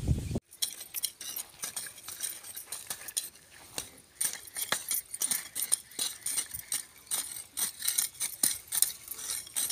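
Small metal hand weeding tools chopping and scraping into dry, stony soil: a quick, irregular run of clinks and scrapes. Before that comes a brief burst of wind noise that cuts off about half a second in.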